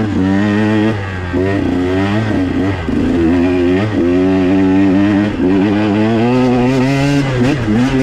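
A 2021 KTM 125 XC's single-cylinder two-stroke engine revs up and down as the dirt bike is ridden along a trail. Its pitch rises and falls with the throttle, which is briefly let off several times.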